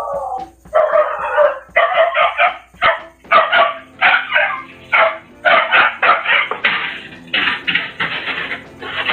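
A dog barking over and over in quick, loud barks, about two a second.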